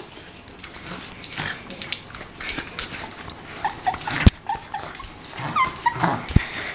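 Wire-haired fox terrier playing, giving short high whines and yips about four seconds in and again near the end, over close rustling and scuffling, with two sharp thumps.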